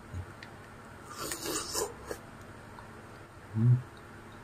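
A person eating cilor off a skewer makes mouth and breath sounds: a breathy, noisy sound about a second in, then a short, low nasal hum near the end, the loudest sound here.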